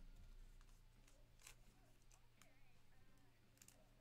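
Near silence: a few faint clicks and rustles of trading cards being handled and flipped, over a low steady hum.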